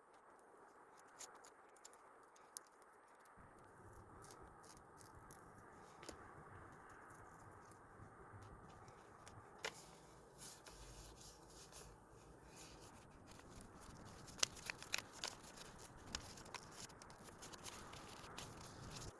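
Quiet handling of paper and stickers while decorating a diary: scattered small clicks, taps and soft rustles, growing busier near the end.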